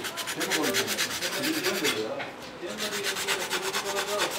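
Rapid hand-scraping of a wooden spoon, about ten short strokes a second, with a brief pause a little over two seconds in.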